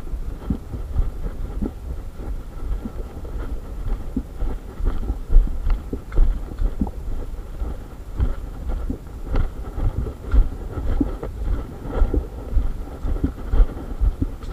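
Walking footsteps on a dry leaf-littered forest trail, an uneven patter of steps and leaf rustles, with low thumps and rumble from the handheld camera jolting with each stride.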